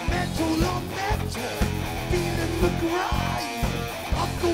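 Heavy metal band playing live: distorted electric guitar over bass and a steady drum beat.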